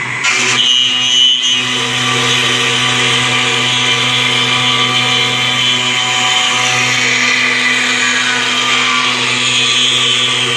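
CNC router spindle running while the bit cuts wood: a steady whine over cutting noise, with a brief louder patch about a second in.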